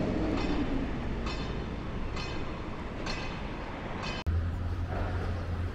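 Outdoor urban background rumble with faint hissing pulses about once a second. About four seconds in the sound cuts abruptly to a steady low hum.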